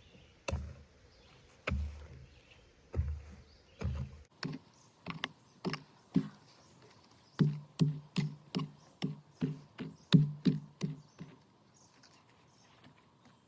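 Garden hoe chopping into wet soil to dig a drainage ditch: repeated thudding strokes, slow at first, then a quicker run of about two or three a second, stopping near the end.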